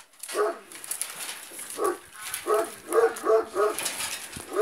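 A dog barking: two single barks, then a quick run of about five barks in the second half.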